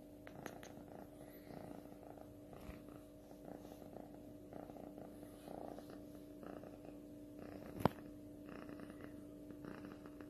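A kitten purring steadily while being petted, with one sharp click about eight seconds in.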